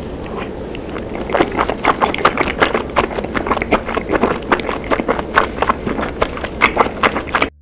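Close-miked chewing of a mouthful of cheese-topped tteokbokki: wet, sticky smacking and squelching several times a second, growing louder after about a second and cutting off abruptly near the end.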